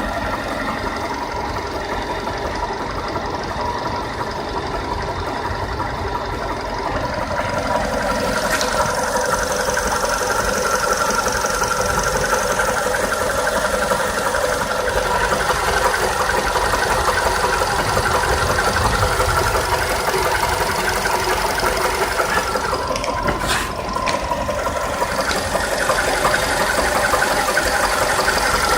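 Volkswagen Polo sedan's CFNA 1.6-litre four-cylinder petrol engine running steadily with a knock from inside the engine.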